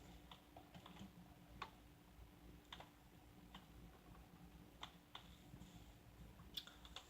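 Near silence: faint, irregular light clicks, about ten of them, over a low steady hum.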